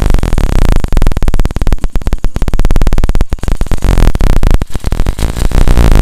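Hero Passion Pro single-cylinder four-stroke engine idling, picked up right at the cylinder, with a fast, even mechanical ticking. The timing-chain-like rattle, a 'kilkil' grinding, is gone now that a faulty bolt has been replaced.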